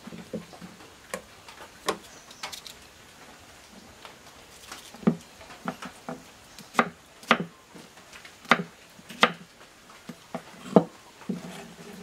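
Kitchen knife cutting rose apples on a wooden chopping board: the blade knocks sharply and irregularly against the board, a few times early and then faster over the second half.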